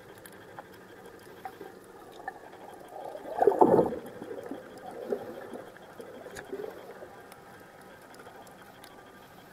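Water noise heard underwater: one brief rush of water and bubbles about three and a half seconds in, the loudest sound, followed by smaller rustles, with faint scattered clicks throughout.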